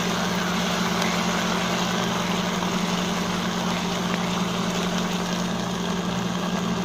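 Sliced onions sizzling in hot oil in an aluminium pressure cooker, with a spatula stirring and scraping now and then, over a steady low hum.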